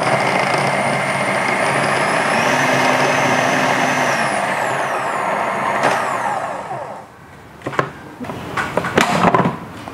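Philips HR7776 food processor's 1300 W motor running with the chopping blade, cutting tomatoes to a coarse mash: a steady whir with a whine that dips in pitch a little after four seconds. The motor stops about seven seconds in, followed by a few clicks and knocks.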